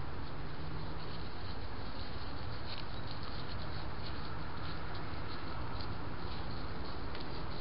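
Steady hiss from a trail camera's built-in microphone, with faint soft ticks scattered through it.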